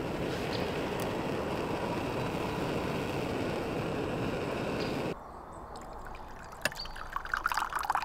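Small gas canister stove burner hissing steadily, shut off abruptly about five seconds in. After a click, coffee is poured from a pot into a wooden kuksa cup near the end.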